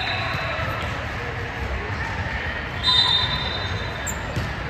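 Busy indoor sports hall during a volleyball match: steady echoing crowd chatter and rumble, with a short, high referee's whistle about three seconds in.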